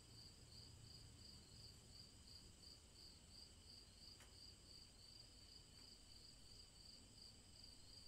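Faint crickets chirping: a steady, evenly pulsing high trill that keeps the same rhythm throughout.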